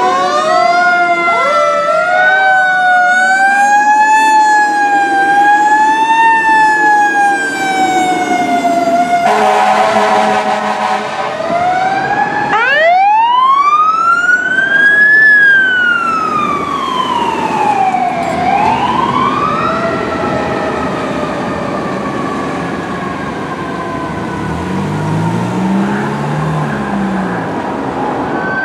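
Fire engine sirens on an emergency response: several electronic sirens wailing together in overlapping up-and-down glides, a short air horn blast about ten seconds in, then a siren winding up and down slowly in long smooth sweeps that fades a little toward the end.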